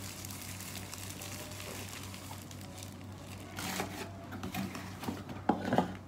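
Clear plastic wrapping crinkling as it is handled and pulled off a humidifier part, in irregular bursts that pick up after about three and a half seconds, over a faint steady low hum.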